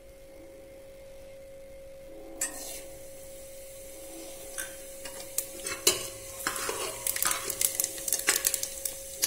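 Cumin seeds sizzling in hot refined oil in an aluminium pressure cooker as they go in for tempering. A hiss starts about two and a half seconds in, then crackling and popping that grows denser toward the end.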